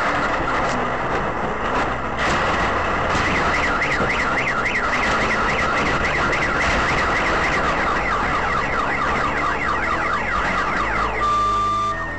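Car alarm warbling rapidly up and down, set off amid shelling, then cutting off about eleven seconds in. A few sharp bangs come in the first two seconds.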